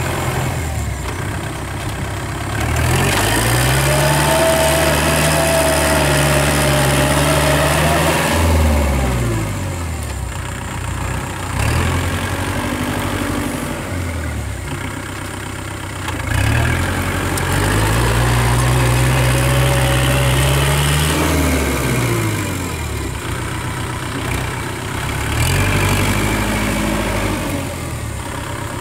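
Kubota tractor's diesel engine running a rear rotary tiller. It revs up and holds for several seconds, then drops back to a lower speed, twice, with a shorter rise near the end.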